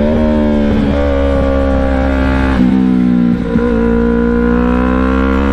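Yamaha YZF-R3's 321 cc parallel-twin engine running at a steady pitch under way, dropping in pitch about two and a half seconds in, then slowly rising as the revs climb.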